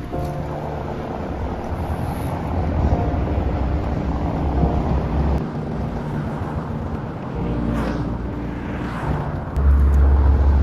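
Wind rumbling on the microphone of a moving bicycle, with car traffic on the road alongside; the rumble grows louder near the end.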